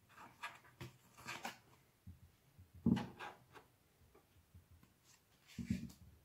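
Playing cards being picked up, slid and laid down on a tabletop: a scatter of short, soft slaps and rustles, the loudest about three seconds in.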